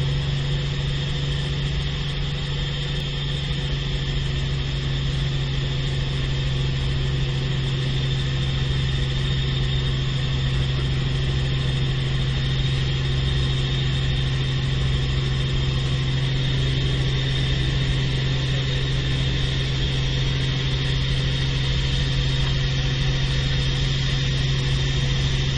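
Helicopter in flight heard from inside the cabin: a steady engine and rotor drone, with a strong constant low hum and a fainter high whine that do not change.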